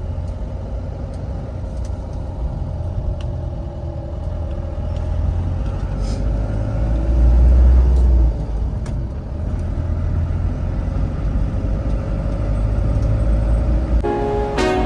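Vehicle driving: a steady low engine and road rumble, with the engine's pitch slowly rising and falling. Music comes in near the end.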